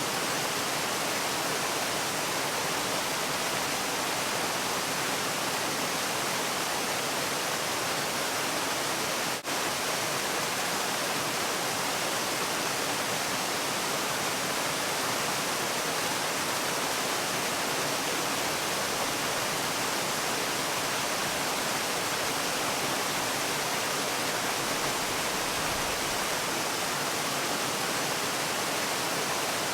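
Steady rushing of falling water, an even hiss that does not change, with one brief dip in loudness about nine and a half seconds in.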